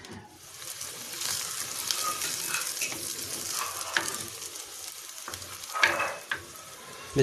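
Sliced onions sizzling in hot oil in a clay handi, the hiss building over the first second and then holding steady. A spatula stirs them, with a few short scrapes and knocks against the pot around four and six seconds in.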